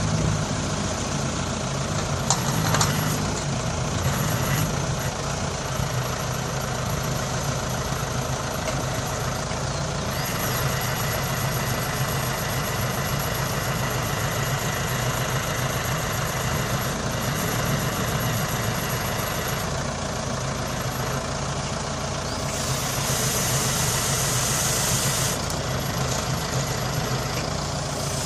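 Engine of a log grapple loader running steadily as it unloads eucalyptus logs, with a brief knock about three seconds in and a few seconds of hiss near the end.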